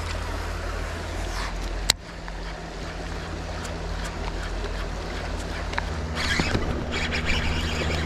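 River current running over rocky shoals, a steady rushing hiss with a low rumble, with a sharp click about two seconds in.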